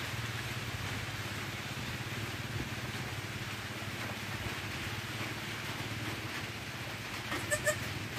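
Steady heavy rain, an even hiss with a low rumble underneath. Two short chirps come near the end.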